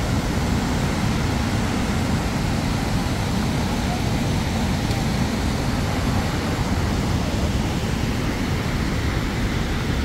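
Steady rushing of a fast alpine mountain stream below a waterfall: an even, unbroken noise of water.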